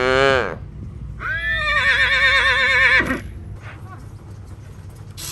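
Horse whinnying: a short call falling in pitch at the start, then a long quavering whinny from about one to three seconds in.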